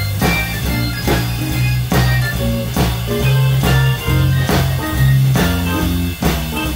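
Live instrumental blues from a quartet of electric guitar, piano, bass and drums, with a moving bass line under a steady drum beat.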